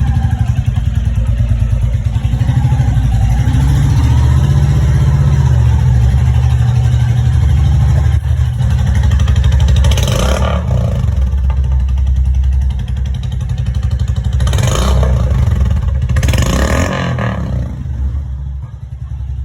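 Motorcycle exhaust through a short-bottle 'mini Punjab' aftermarket silencer with a narrow outlet, running with a deep, steady low thump. Three short louder bursts come about ten seconds in and twice more a few seconds later, and the sound drops off near the end.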